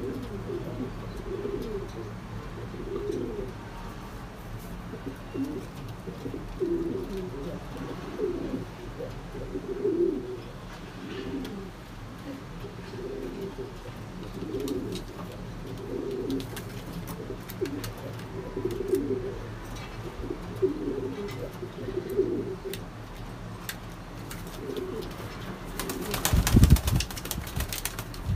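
Domestic pigeons cooing over and over in low, warbling calls. Near the end there is a brief loud rush of noise.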